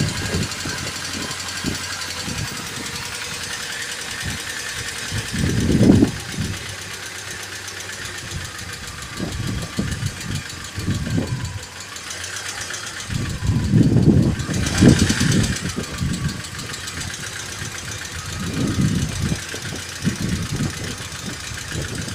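ZMZ-406 inline-four engine running with a rapid, steady ticking knock from the top end, caused by faulty hydraulic lifters. The sound swells louder several times.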